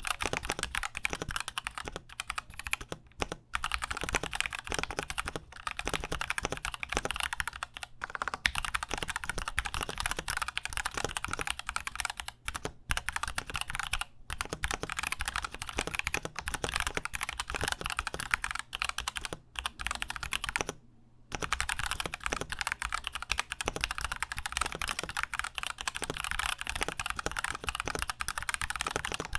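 Continuous typing on a KBD67 Lite mechanical keyboard with stock, unlubed Gateron Milky Yellow linear switches: a dense stream of keystroke clacks, broken by one short pause about two-thirds of the way through.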